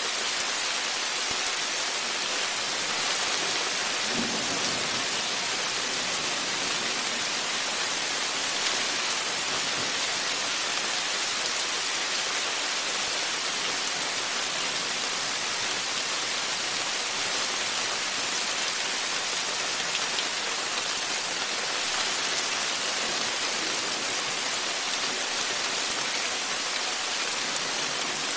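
Heavy rain falling steadily in a thunderstorm, an even, unbroken hiss of rain on the porch and the wet ground around it.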